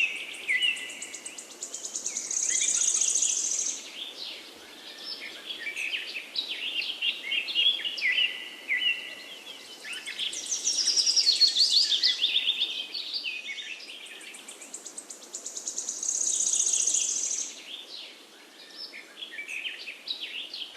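Several songbirds singing together in a forest morning chorus: a steady jumble of chirps and whistles, with a loud, high trilled song phrase repeated three times.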